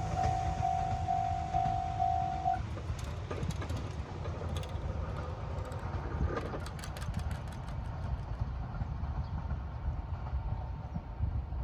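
Level-crossing warning bell ringing in a steady, even beat of about two strikes a second, then stopping about two and a half seconds in. Under it, the rumble of an Izuhakone Railway 3000 series electric train fading as it moves away from the crossing, with a few scattered clicks.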